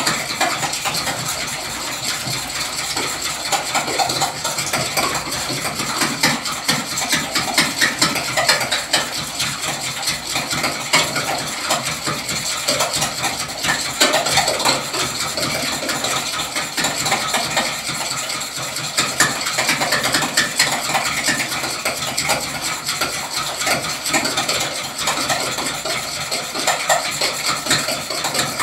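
Eggs being beaten by hand in a glass bowl: a utensil clicking rapidly and continuously against the glass through the wet egg mixture.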